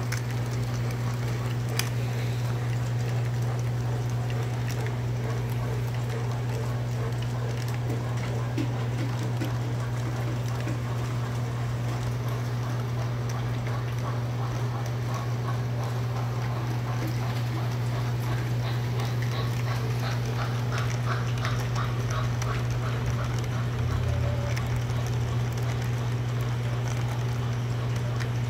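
O gauge model trains running on tubular three-rail track: a steady low electrical hum from the locomotive motors and transformer, with faint clicking of wheels over the rail joints. A brief run of quicker, higher clicks comes about two-thirds of the way through.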